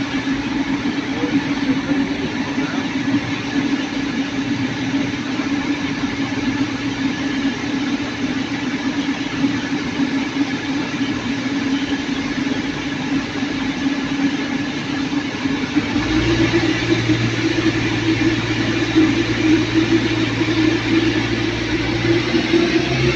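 CrossCountry Class 220 Voyager diesel multiple unit standing at the platform, its underfloor Cummins diesel engines idling with a steady drone. About two-thirds of the way through, the engines rev up to a louder, deeper hum as the train powers up to pull away.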